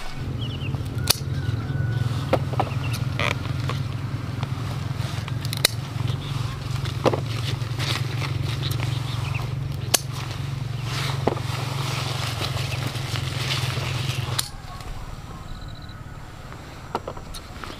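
Scissors snipping through bell pepper stems, several sharp clicks a second or so apart, with leaves rustling, over a steady low hum that cuts off abruptly near the end.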